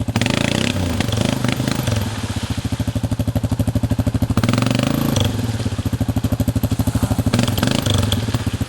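ATV engine running at low revs with a pulsing chug, the revs rising and easing off with the throttle.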